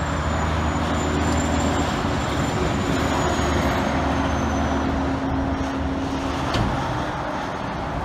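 Semi-truck diesel engine running with a steady low drone, over which a thin, high-pitched turbo whistle slowly falls in pitch and fades out about five seconds in, amid road traffic noise.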